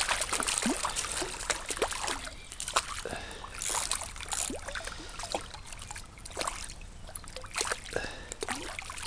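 Shallow stream water trickling and gurgling over stones, close by, with many small splashes and bubbling plinks scattered throughout.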